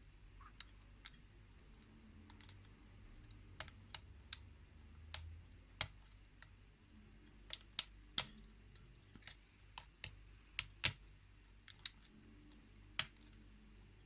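Faint, irregular metallic clicks, about fifteen of them, from a lock pick and tension wrench working the pins of a pin-tumbler challenge lock one by one, single pin picking.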